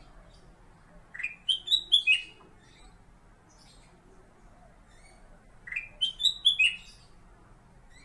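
Caged black-crested bulbul (kutilang emas, Pycnonotus melanicterus) singing: two matching short phrases of about five quick notes each, about four seconds apart.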